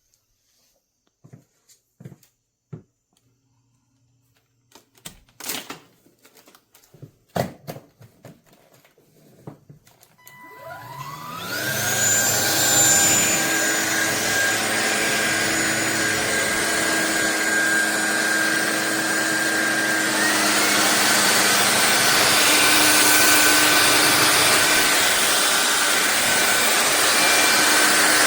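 A few scattered clicks and knocks, then the SunSare X7A cordless stick vacuum's motor spins up with a rising whine about ten seconds in and runs steadily, its pitch stepping up slightly near twenty seconds in.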